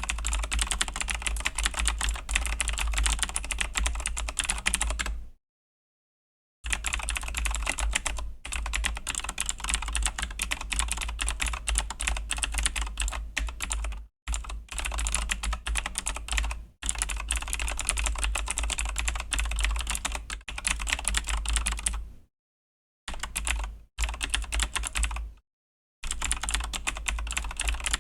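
Fast continuous typing on a Razer BlackWidow V3 mechanical keyboard with Razer Green clicky switches: a dense stream of key clicks, broken by three short pauses of silence.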